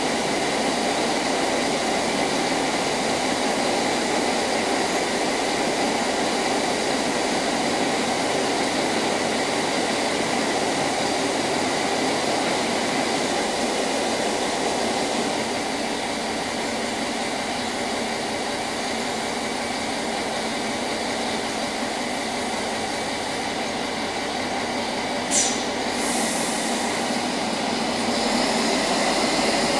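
Stadler Regio-Shuttle RS1 diesel railcar standing at the platform with its engine running steadily, then growing louder near the end as it begins to pull away. A brief shrill sound cuts in about 25 seconds in.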